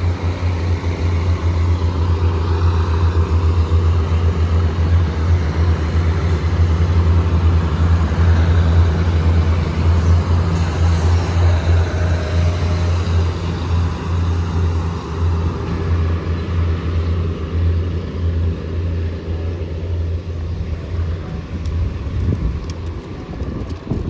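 Diesel railcar train pulling out of the station, its engines giving a steady low drone that slowly fades as it moves away, dying out near the end.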